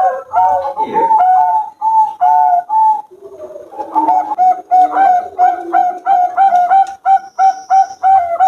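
Zebra doves (perkutut) cooing: a rapid, rhythmic series of short notes, about three a second, at two pitches, with a short break about three seconds in.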